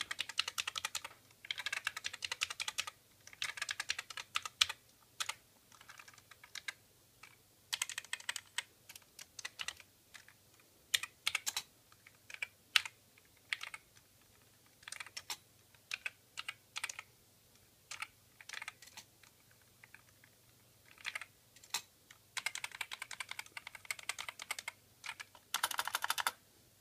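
Keys of a Yamaha CX11 MSX computer's keyboard being typed on: fast runs of keystrokes broken by pauses and single key presses.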